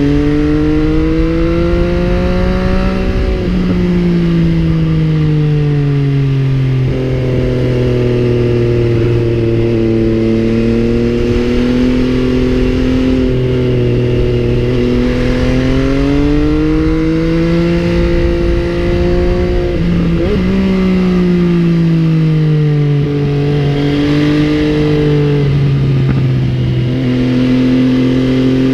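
MV Agusta Brutale 800's three-cylinder engine running under way, its note climbing and falling several times as the bike speeds up and slows, with a few sudden drops in pitch at gear changes.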